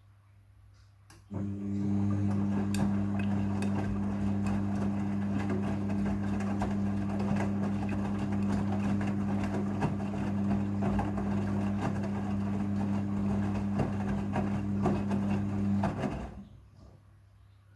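Midea front-loading washing machine during its rinse: a steady electric hum with water noise and light rattling switches on about a second in and cuts off abruptly about fifteen seconds later, typical of the drain pump or water valve running.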